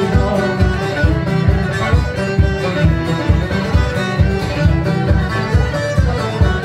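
Live band playing a tune on fiddle, banjo and acoustic guitar, with a steady, quick beat.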